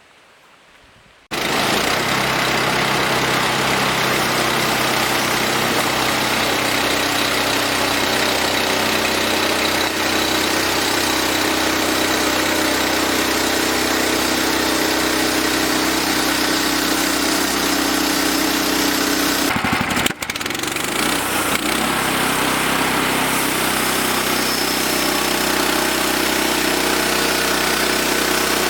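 Engine of a portable bandsaw sawmill running steadily. It comes in suddenly about a second in, and about twenty seconds in it dips briefly and settles at a lower pitch.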